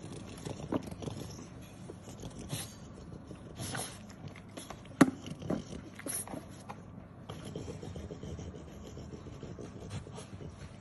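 A French bulldog puppy nosing about in a plastic bowl: irregular scraping and rubbing with scattered clicks and knocks, the sharpest about five seconds in.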